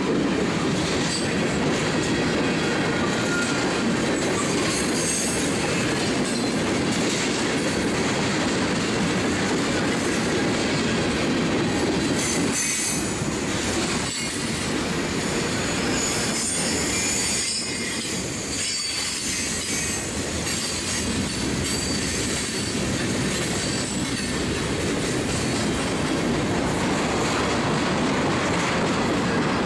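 Freight cars of a long train rolling past close by: a steady rumble of steel wheels on rail, with high-pitched wheel squeal coming and going.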